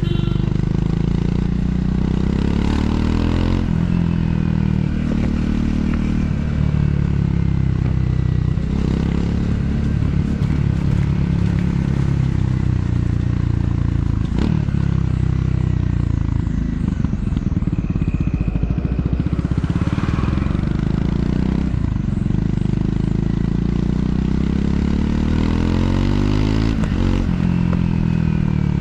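Triumph Scrambler 400 X's single-cylinder engine and exhaust under way, the revs rising and falling several times as the bike is ridden downhill.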